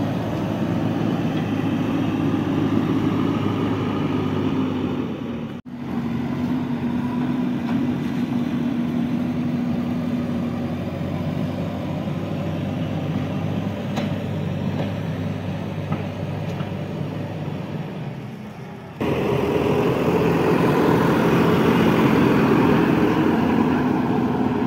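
Backhoe loader's diesel engine running steadily. The sound breaks off for an instant about six seconds in and comes back louder and brighter about nineteen seconds in.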